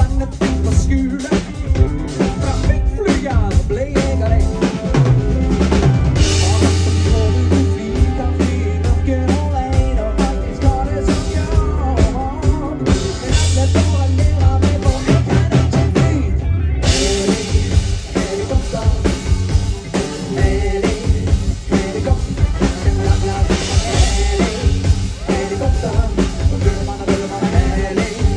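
Live band music over a stage PA, driven by a drum kit with steady bass drum and snare hits under the other instruments.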